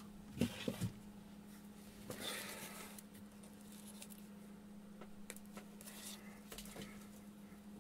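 Quiet workbench handling noises: a few light clicks near the start and a brief rustle about two seconds in, then scattered faint ticks, over a steady low hum.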